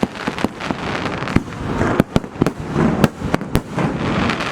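Fireworks display set off about 50 to 100 m away: a dense, irregular run of sharp bangs, several a second, over continuous crackling.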